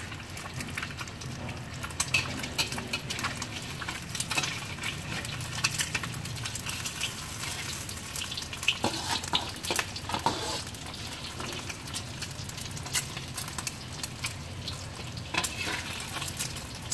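An egg frying in oil in a wok, sizzling steadily, with a metal spatula scraping and clicking against the wok now and then as it is pushed and turned.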